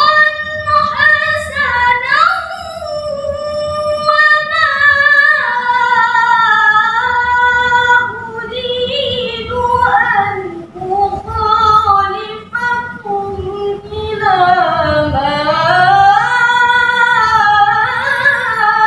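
A young woman reciting the Quran in the melodic tilawah style into a microphone: one unaccompanied voice holding long notes with wavering ornaments and slow pitch glides, pausing briefly for breath every few seconds.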